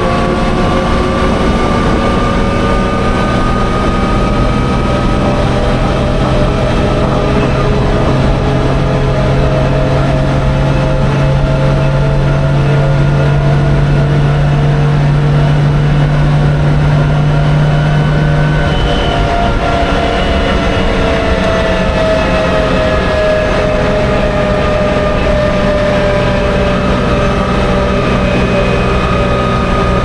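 Daimler Ferret Scout Car's Rolls-Royce B60 straight-six petrol engine running steadily as the armoured car drives along. The engine note changes about two-thirds of the way through.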